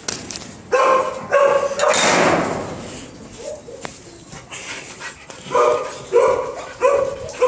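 A dog barking: two barks about a second in, then three more near the end, spaced about half a second apart. A brief rushing noise comes between them, about two seconds in.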